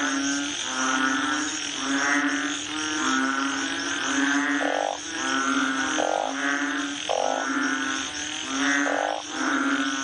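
A chorus of frogs calling at night, many calls overlapping: low, steady notes repeating almost without a break under higher, rasping calls that come about once a second.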